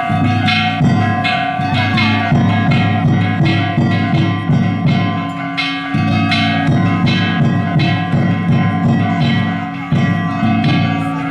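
Danjiri festival music: a big taiko drum and hand-struck kane gongs beaten together in a fast, steady rhythm of about three strokes a second, the gongs ringing over the drum. The drum drops out briefly about six seconds in, then resumes.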